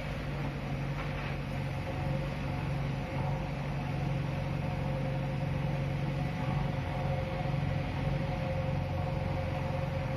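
Diesel engines of a JCB backhoe loader and a Tata tipper lorry running steadily with a constant drone while the backhoe arm works, digging crushed stone to load the lorry.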